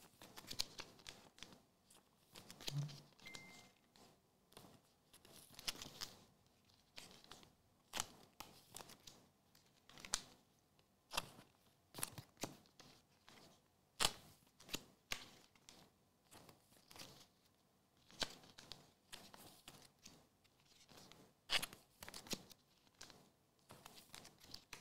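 Trading cards being handled by hand on a mat: faint rustling with a sharp click every second or so.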